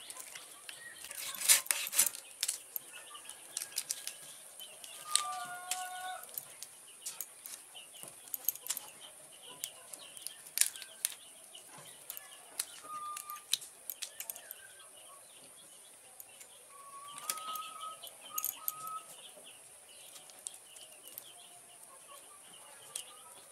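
Giant freshwater prawns being cleaned by hand: irregular sharp clicks and crackles as the head shells are pried off and the shells are snapped and handled. A few short bird calls and a steady high hiss are in the background.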